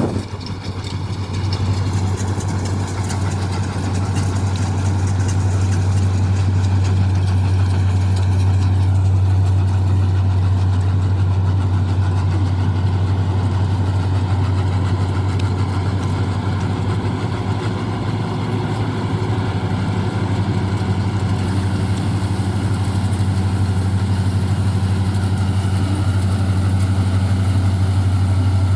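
Combine harvester's engine running steadily, a deep constant drone with a mechanical hum layered above it.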